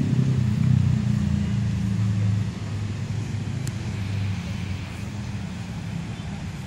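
A motor vehicle's engine running close by, a low steady hum that drops in level about two and a half seconds in, over general traffic noise.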